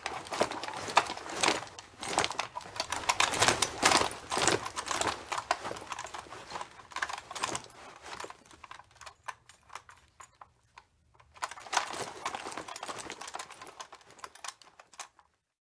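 Rapid, irregular gunfire clatter: a dense run of sharp cracks and clicks that thins out about halfway and falls nearly quiet for a couple of seconds, then picks up again near the end and stops suddenly.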